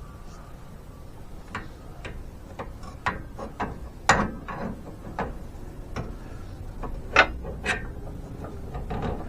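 Hand ratchet wrench working a nut on the steering linkage: irregular metallic clicks and clinks, the sharpest about four and about seven seconds in.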